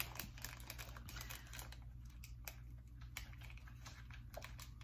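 Faint, irregular light clicks and crackles of a plastic sweet packet of Cadbury Dairy Milk Buttons being opened and handled by fingers.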